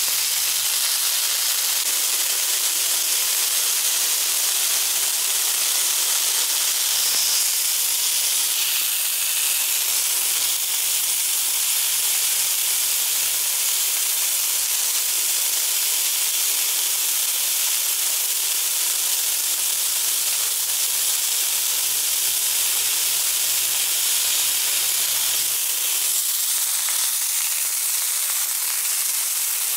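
Pork chops searing in hot oil in a nonstick frying pan: a steady sizzle.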